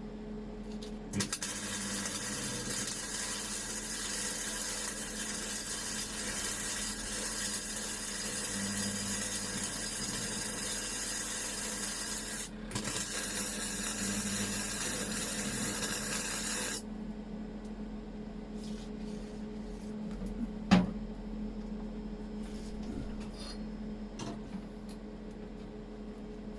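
A cheap 130-amp gasless flux-core MIG welder laying a bead: the arc's steady hiss and crackle starts about a second in, drops out for a moment past the middle, then cuts off about two-thirds of the way through, over a steady low hum. One sharp knock follows a few seconds after the arc stops.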